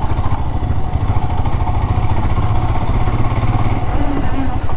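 Royal Enfield Himalayan's 411 cc single-cylinder engine running steadily under way, heard from the rider's seat as a fast, even low pulse with a steady rush of noise over it.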